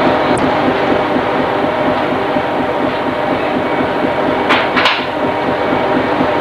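Steady drone of a fishing trawler's deck machinery and engines, a loud rumble with several steady hum tones in it. Two short bursts of noise come close together about four and a half seconds in.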